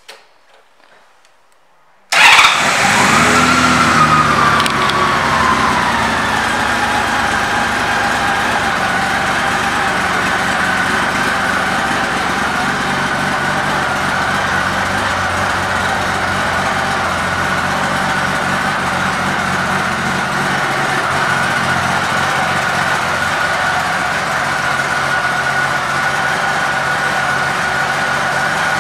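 1998 Honda Valkyrie Tourer's 1520 cc flat-six engine, fitted with an aftermarket exhaust, starting about two seconds in. The revs flare at the catch, fall back over a few seconds, and settle into a steady idle.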